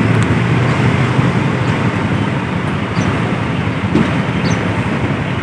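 Intercity bus engine running with steady traffic and road noise, a low hum near the start that fades after about a second.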